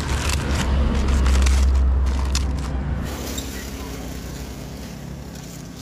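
A motor vehicle's engine rumbling past, swelling to its loudest about a second and a half in and then slowly fading. Paper crackles over it during the first few seconds.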